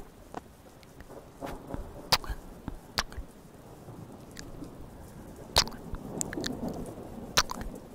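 ASMR mouth sounds made right at a small microphone held against the lips: irregular wet clicks and pops, four of them sharp and loud, with softer smacks and tongue ticks between.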